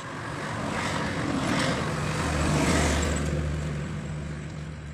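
A road vehicle passing by: its engine and tyre noise swell over a couple of seconds, peak near the middle with a low steady engine hum, and fade away again.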